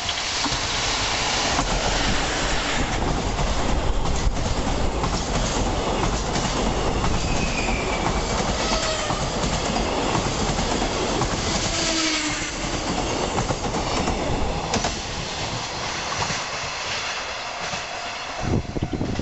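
Freight train of container wagons, hauled by an electric locomotive, passing close by: a loud, steady rumble and clatter of wheels on rails, with a few thin tones sliding in pitch around the middle, fading as the end of the train goes by.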